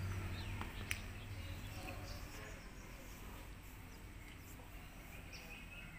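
Quiet outdoor ambience with faint bird chirps, a low hum fading away over the first two seconds, and a single sharp click about a second in.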